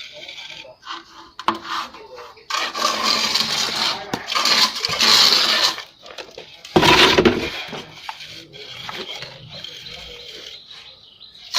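Steel plastering trowel scraping cement render across a wall, with short metallic clinks and one louder burst about seven seconds in.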